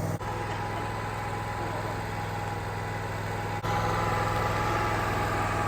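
Portable sawmill's engine running steadily. About halfway through it gets a little louder and a higher whine joins it.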